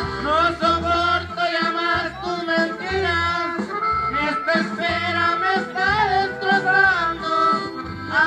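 Live norteño music through PA loudspeakers: a male voice sings over an accordion, with bass notes pulsing underneath about once a second.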